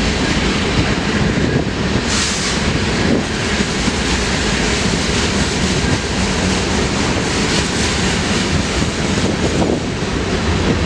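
A train running through the station, heard as a loud, steady rumble mixed with wind buffeting the microphone.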